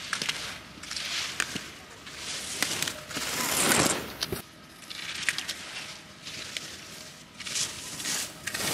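Ski edges scraping and carving on hard-packed snow as slalom skiers come through the gates, each turn a swelling hiss, with sharp knocks of skis or arms hitting the gate poles.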